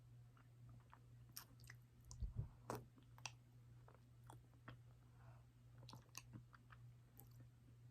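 Faint mouth sounds of someone eating soft-serve Blizzard ice cream: quiet wet clicks and smacks, with a few sharper ones about two to three seconds in, over a low steady hum.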